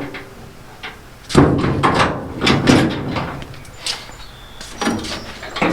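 Jeep FC150 steel pickup tailgate being swung up and shut: one loud bang about a second and a half in, then several lighter metal clanks.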